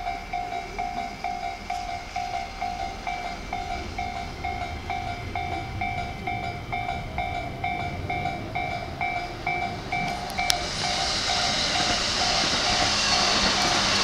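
Japanese level-crossing warning bell ringing in an even electronic ding-ding, about three dings every two seconds. About ten seconds in, a Keihin-Tohoku Line E233 series electric train arrives, and its rolling rush grows loud over the bell.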